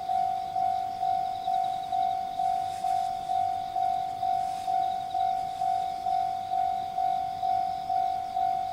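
Japanese level-crossing warning bell ringing, a steady ding about twice a second, each stroke fading before the next.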